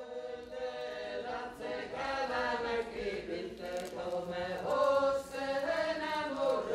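Seto leelo: a small group of folk singers singing unaccompanied in several voice parts, with a high held line above the others.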